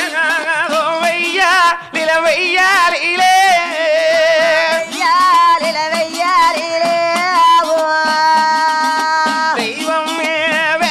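Tamil folk singing with a wavering, ornamented melody over a steady drone, accompanied by udukkai hourglass hand drums.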